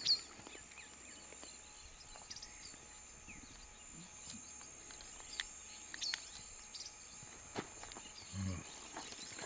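Faint outdoor ambience with scattered short bird chirps and a steady, thin, high-pitched whine underneath.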